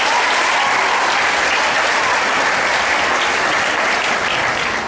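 Audience applauding, steady and loud, easing off slightly near the end.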